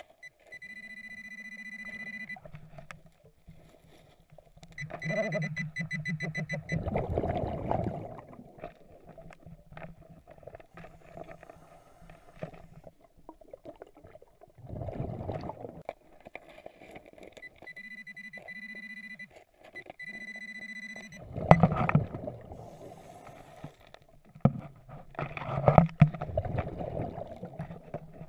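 Heard underwater: a handheld metal-detector pinpointer giving a high electronic tone in runs of one to three seconds as it is swept over the rocky riverbed. Between the tones come several louder rushes of bubbles from the diver's scuba exhalations.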